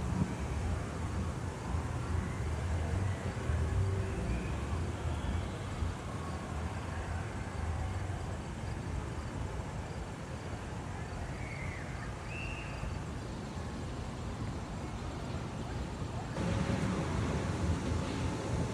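Steady outdoor background noise with a low rumble and a few faint high chirps about two-thirds of the way through; it gets louder near the end.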